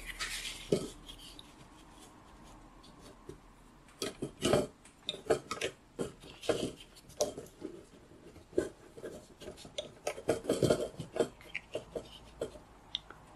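Sheets of sketchbook paper being handled and shifted, with rustling, scraping and small taps coming in clusters, busiest about four seconds in and again near ten seconds.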